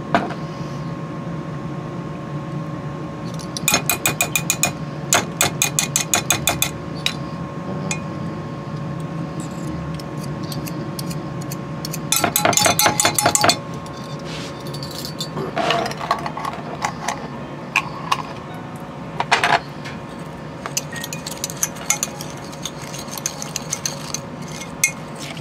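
Metal spoons and a fork clinking against a Pyrex glass measuring cup and a glass mustard jar: quick runs of taps as Dijon mustard is scooped and scraped into the cup, about four seconds in and again about twelve seconds in. Near the end, lighter quick clinking as a spoon stirs the glaze in the cup.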